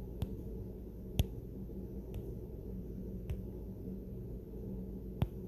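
Fingertip taps on a smartphone touchscreen: five short, sharp clicks at uneven intervals, the loudest about a second in, over a low steady hum.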